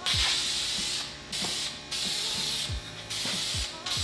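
Aerosol can of Dupli-Color glossy black vinyl and fabric spray paint hissing in repeated passes, about four bursts of a second or so with short breaks between, as a third, slightly thicker coat goes onto plastic interior trim panels.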